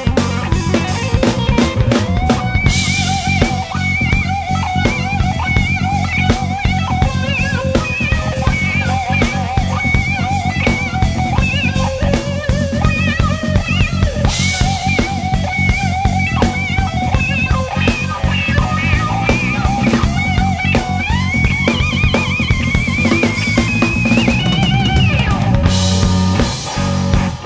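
Instrumental rock trio playing live: electric guitar plays a wavering melodic lead over bass and a steady drum-kit beat. Crash cymbals ring out near the start, midway and near the end.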